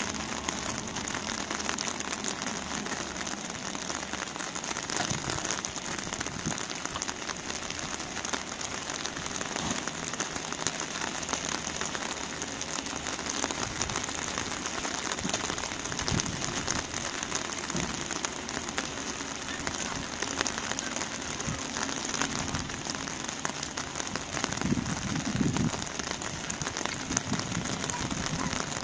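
Heavy rain falling steadily: a continuous dense hiss of drops.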